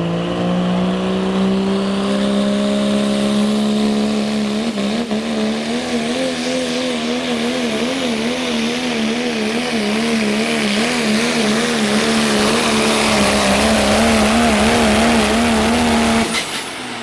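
Turbocharged Pro Stock Diesel 4x4 pulling truck at full throttle dragging a pulling sled. The engine note climbs over the first few seconds, then holds high with a wavering pitch. It drops off abruptly near the end as the pull finishes.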